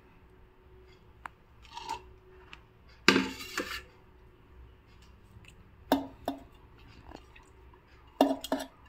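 Kitchen utensils clattering and scraping against a stainless steel mixer-grinder jar as food is tipped into it: a few short clatters, the loudest about three seconds in, with more around six seconds and near the end.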